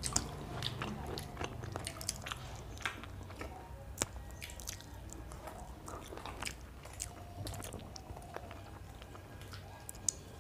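Two people eating paratha and chicken curry with their hands: chewing, with irregular sharp clicks and smacks from mouths and fingers, over a low steady hum.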